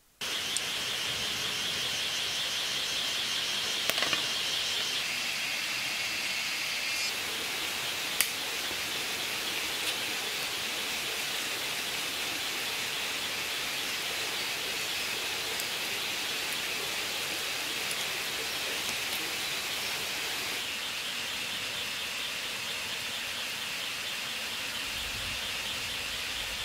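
Jungle ambience: a steady hiss with a high, rapidly pulsing trill over it that steps lower about five seconds in, drops out around seven seconds, and returns about twenty seconds in. A few sharp clicks stand out, around four and eight seconds.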